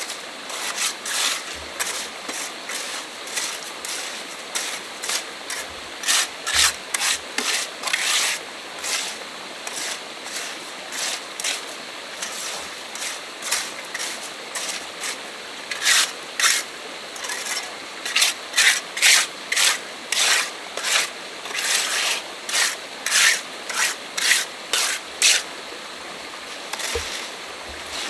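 Repeated rough rasping strokes, each well under a second, coming in runs of about one to two a second, with the loudest run in the second half.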